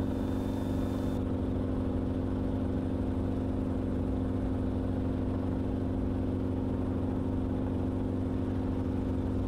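Enstrom helicopter in cruising flight: steady drone of engine and rotor with a constant low hum, unchanging throughout.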